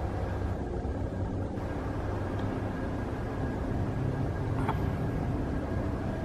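Steady low rumble of outdoor background noise, with one faint click about four and a half seconds in.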